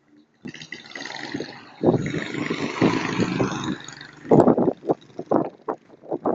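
Storm noise: a rush of wind and water starts suddenly, then breaks into irregular gusts buffeting the microphone from about four seconds in.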